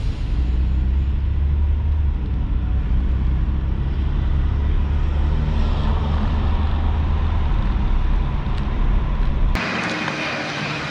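Road noise inside a moving car: a steady low rumble of engine and tyres. About 9.5 s in it cuts abruptly to brighter outdoor street noise with traffic.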